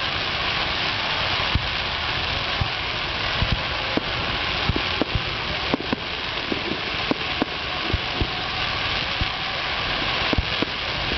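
Fireworks barrage of aerial shells and starmine: a steady, dense crackling hiss with irregular sharp bangs of shells bursting, one or two each second.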